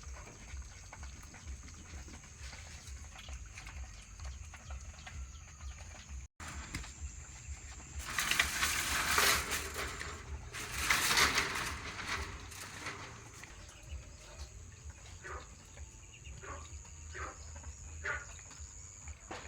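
Farm animals calling, with two loud bursts of noise about eight and eleven seconds in, and a few short separate calls near the end.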